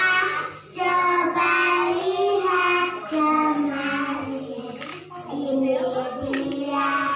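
Young children singing a song together, one of them into a microphone, in held notes with short breaks between phrases.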